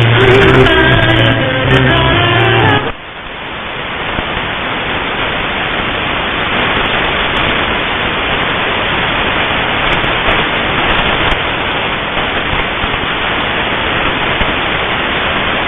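Shortwave radio reception: music from a broadcast station for about the first three seconds, then it cuts off suddenly to steady static hiss for the rest.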